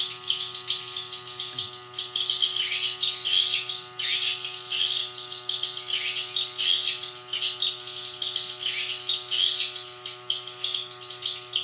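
Dense, continuous chirping of swiftlets, over a steady low hum.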